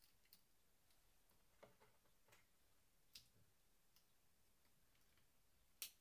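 Faint, scattered clicks and taps from hands handling the plastic and metal parts inside an opened laptop around its battery. There are a few small ticks and one sharper click near the end.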